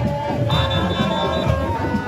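Loud music: a held melodic line over a dense drumbeat.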